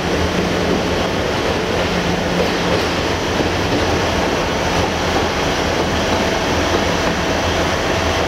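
LDH diesel-hydraulic shunting locomotive running steadily as it pulls away, its low engine drone under an even hiss of noise.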